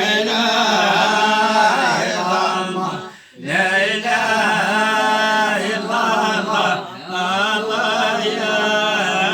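A man chanting an Islamic devotional text solo, in long ornamented phrases with pitch slides, pausing for breath about three seconds in and again about seven seconds in.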